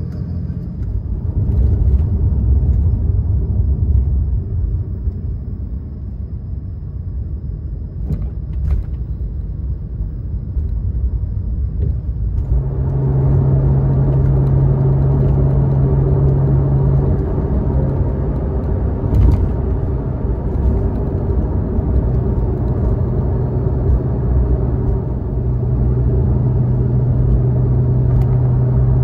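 Porsche 911 991.2 Carrera's twin-turbo flat-six and road noise while driving. About twelve seconds in, the sound grows louder and a steady engine drone sets in and holds, with short breaks.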